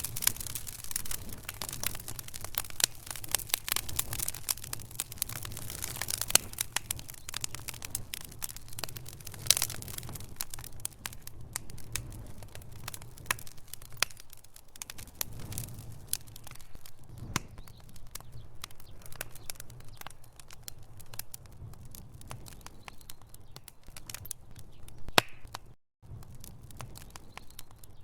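Wood fire burning in a fireplace, crackling with dense, irregular pops and snaps over a low steady rumble. The crackles come thick at first and thin out about midway, and the sound cuts out for a moment near the end.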